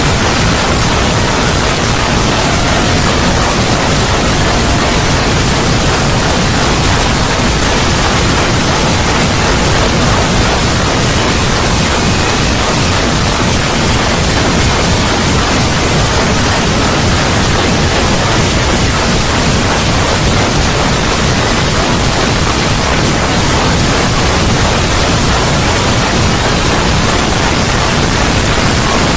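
A 'void' ambience sound effect: steady, loud rushing noise spread evenly from deep to high pitches, unchanging throughout.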